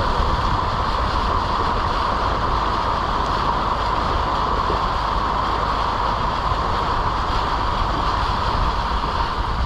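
Steady road and engine noise of a moving vehicle: a continuous low rumble with a brighter hiss in the middle, with no breaks or separate events.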